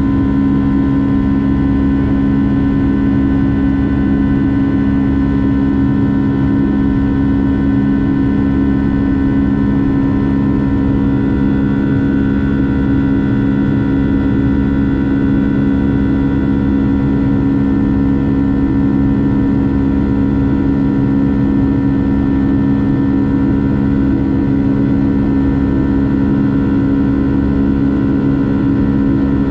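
Boeing 757-300's jet engines running steadily: a loud, even drone with several constant humming tones over a low rumble.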